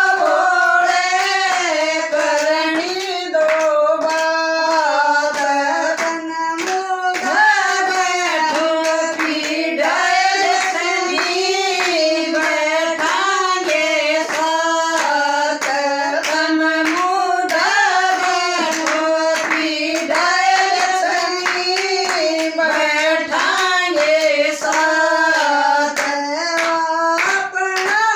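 Voices singing a Haryanvi Shiva bhajan, a continuous melody with wavering ornamented pitch, accompanied throughout by repeated sharp hand claps keeping the rhythm.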